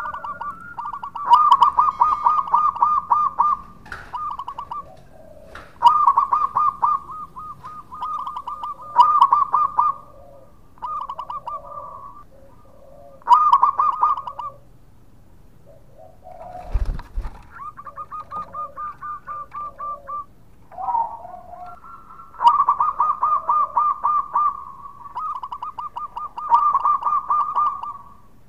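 Zebra dove (perkutut) cooing in full song: repeated phrases of rapid, clipped notes at one steady pitch, each phrase a second or two long, with short pauses between.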